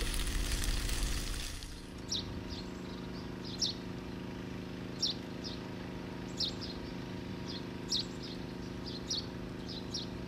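A steady hiss that cuts off just under two seconds in, then a bird calling: short high chirps, usually two at a time, repeating about every second and a half over a steady low hum.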